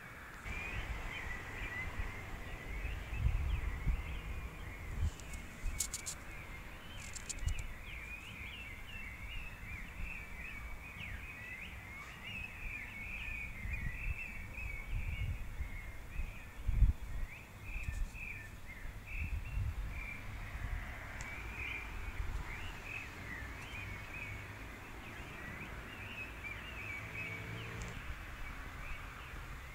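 Many small birds chirping and twittering together in a dense, unbroken chorus, with irregular low rumbling thumps underneath.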